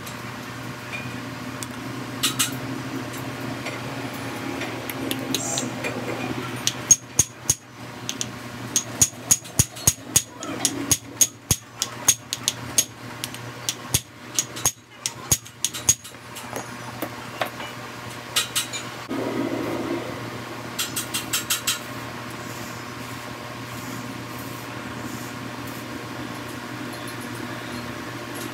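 Steel bar working in the bore of a machined steel flange: a series of sharp metal-on-metal knocks with a bright ring, some two or three a second for about ten seconds in the middle, with short clinking rattles before and after. A steady machine hum underneath.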